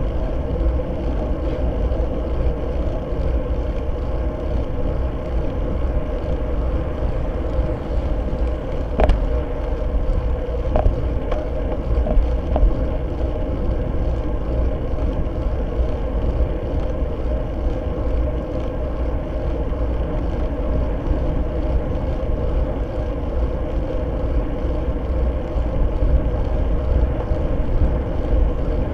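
Steady wind rush and road rumble picked up by a Fly6 camera on a road bike riding at speed, with a low hum under it. A cluster of sharp clicks about nine seconds in.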